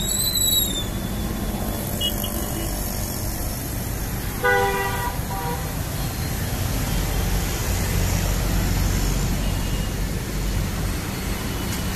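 Hyundai Grand i10's engine idling with a steady low rumble. About four and a half seconds in, a vehicle horn toots once and then briefly again. A short high squeal comes at the very start.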